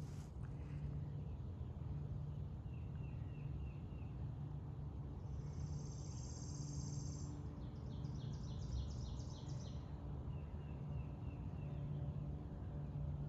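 Outdoor ambience of birds and insects calling over a steady low rumble. A high buzzing trill runs for about two seconds near the middle, then a quick series of high notes, about four a second; softer runs of repeated chirps come twice.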